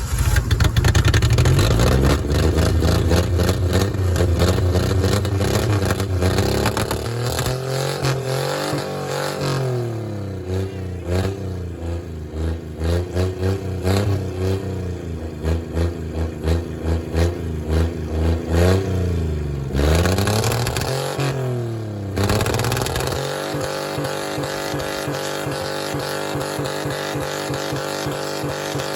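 Car engine being revved hard over and over, its pitch climbing and falling, then held at a steady high speed for the last few seconds. It is being deliberately over-revved with the drive wheels spinning free, to blow the engine by sending a rod through the block.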